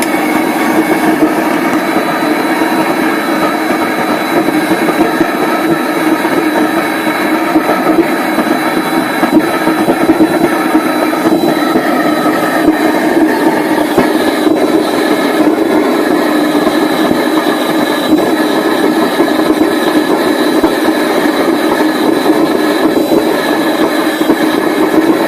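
Homemade vegetable-oil-fired furnace burner running, its forced air blast and flame making a loud, steady noise like a jet plane.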